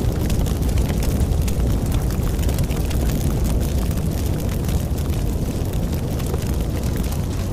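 A wooden barn burning in full blaze: a steady low rumble of the flames with dense crackling and popping throughout.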